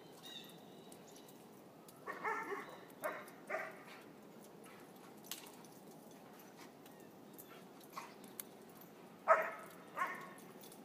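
Dogs giving short play barks: a quick run of three or four barks about two seconds in, then two louder barks near the end.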